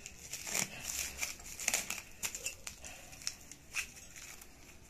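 Clear plastic wrapping crinkling and crackling in an irregular run as it is pulled and unwound off a steel chair pedal to free the screws packed with it. It dies down near the end.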